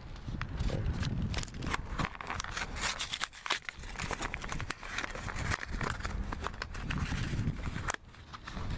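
Plastic and cardboard packaging crinkling and tearing as a new automotive turn signal bulb is taken out of it: dense, irregular crackles and clicks. The sound cuts off abruptly near the end.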